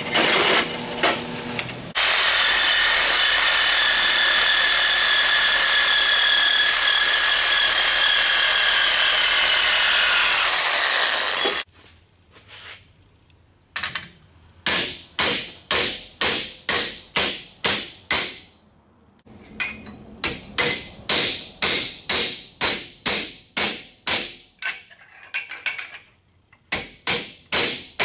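A drill press bit cutting through a steel pipe gives a steady grinding noise that stops abruptly about eleven seconds in. From about fourteen seconds a hammer strikes a flat steel plate clamped in a bench vise, bending it. The blows come in even runs, a little over two a second, with two short pauses.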